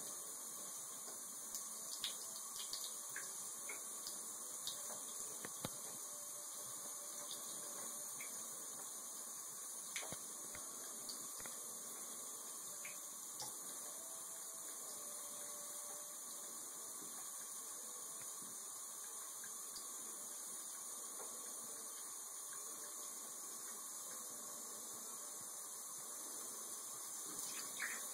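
Thin stream of water trickling from a bathtub spout onto a cat's fur and into the tub: a faint steady trickle with scattered small splashes.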